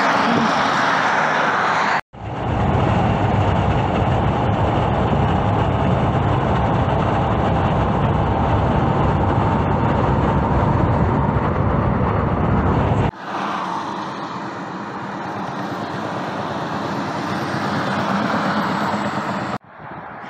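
Highway traffic noise cut together from several clips: a semi truck passing on a divided highway, then a long stretch of steady low road rumble from inside a moving car driving beside an old cabover truck, then lighter highway traffic that slowly grows louder.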